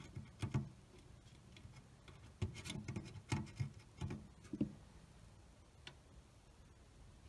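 Irregular light clicks and rustles of fingers twisting a wire lead onto a potentiometer's ground terminal inside an old car radio's metal chassis.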